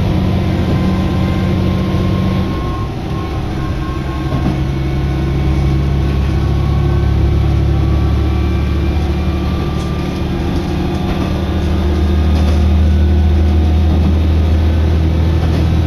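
Diesel railcar under way, heard from inside the cabin: a low engine drone over the train's running noise, its pitch shifting about two and a half seconds in and growing stronger near the end.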